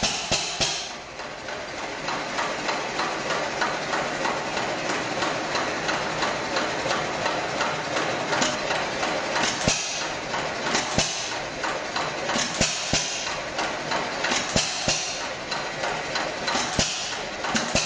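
Hit-and-miss stationary engine running: a rapid mechanical clatter broken every second or two by a louder, noisier burst as it fires. Its governor lets it fire only when its speed drops and coast in between.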